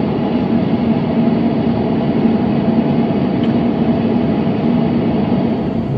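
Steady roar of an airliner cabin in cruise, engine and airflow noise with a constant low hum.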